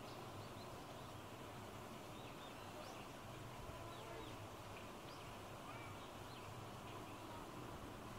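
Faint outdoor ambience: a steady low hum with short, high chirps of small birds scattered throughout.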